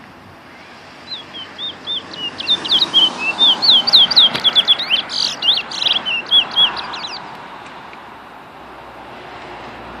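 A caged black songbird singing one long phrase of quick, slurred whistled notes that grows louder and speeds into a rapid run, then stops about seven seconds in.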